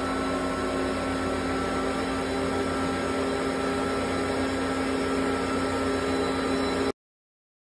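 Antminer L3+ ASIC miner's cooling fans running at speed with the repaired hash board powered and hashing: a loud, steady whir with a few steady tones. It cuts off suddenly about seven seconds in.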